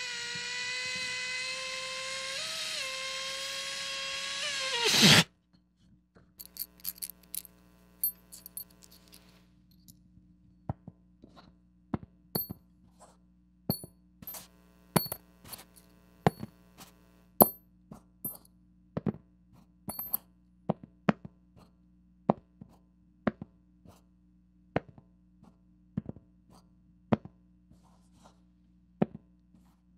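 A rubber balloon squealing in a steady high whine as air escapes through its stretched neck, cutting off with a loud sharp sound about five seconds in. Then two metal nails tapped and clinked together by hand, a string of sharp metallic clicks with a brief ring, irregular, about one or two a second.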